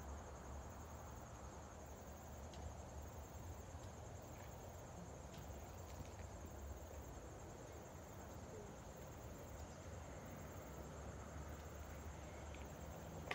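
Faint, steady low rumble of a high-flying Boeing 737-800 airliner's CFM56 turbofans passing overhead, with a steady high insect trill running alongside.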